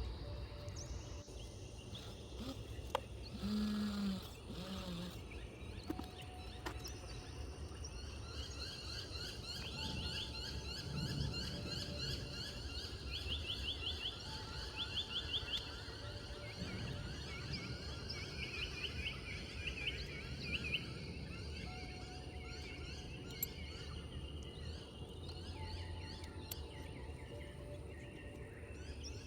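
Birds chirping in fast repeated trills over a steady low outdoor rumble, with a single sharp knock about three seconds in.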